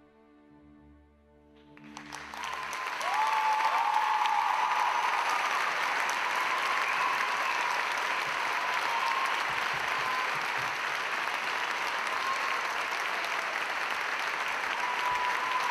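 The last soft held notes of the orchestral music, then a theatre audience breaks into sustained applause about two seconds in. It grows loud within a second and a half, with calls from the audience rising over it.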